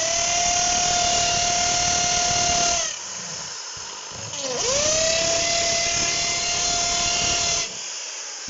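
Electric drill running in two bursts of about three seconds each, spinning up quickly and then holding a steady whine, most likely countersinking screw holes in OSB flooring.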